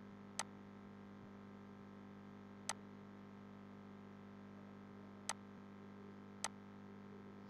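Four single computer mouse clicks, a second or more apart, over a faint steady hum.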